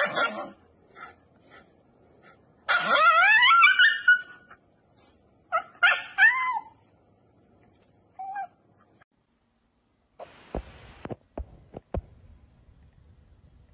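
Shiba Inu screaming in protest as its nails are clipped: a long rising scream, then shorter wavering yelps. A few sharp clicks follow near the end.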